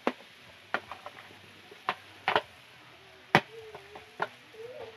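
A kitchen utensil knocking against cookware, about six sharp taps spread unevenly over a few seconds with the loudest about halfway through, as grated cassava is put into the frying pan.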